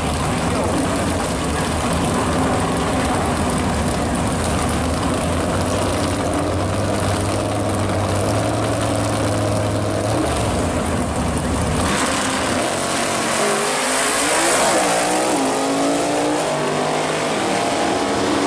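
A 1965 Pontiac GTO fat-tire drag car and a Fox-body Ford Mustang sit running loudly at the starting line. About twelve seconds in, both launch at full throttle, and the engines rev away with rising pitch as they run down the strip.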